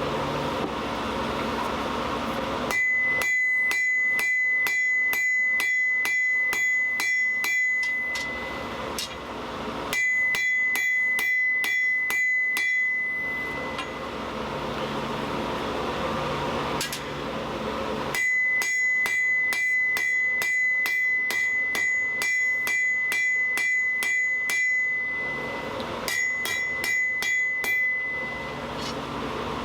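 Hand hammer striking hot steel on an anvil in four runs of about two blows a second, each blow with a clear, high anvil ring. A steady noise fills the pauses between runs.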